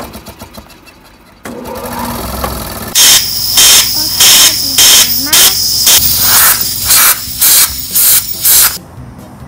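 An electric air compressor starts running with a steady hum, then a compressed-air blow gun fires a quick series of short, loud hissing blasts, about two a second, blowing dust out of a motorbike's air cleaner box.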